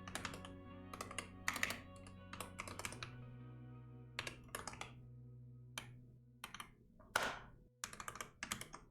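Computer keyboard typing in quick bursts of keystrokes with short pauses between them, over soft background music of held chords that dies away near the end.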